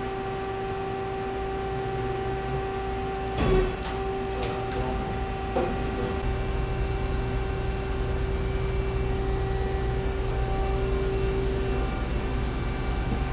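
Freshly powered-up Nakamura-Tome AS-200L CNC lathe running at idle: a steady hum with a low rumble beneath it, and the hum's tone cuts out near the end. About three and a half seconds in, the sliding guard door opens with a clunk, followed by a few light clicks.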